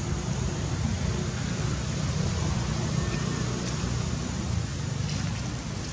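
Steady outdoor background noise: a low rumble under an even hiss, with no distinct animal calls.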